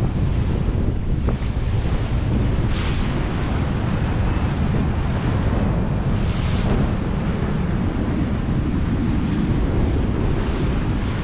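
Strong wind buffeting the microphone over the rush of water along the hull of a sailboat heeling under sail. There are two brief hissing splashes of spray, about three and six and a half seconds in.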